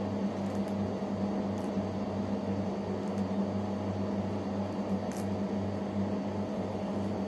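Steady low hum of a running electrical appliance in a small room, with a faint pulsing underneath and a few faint light clicks.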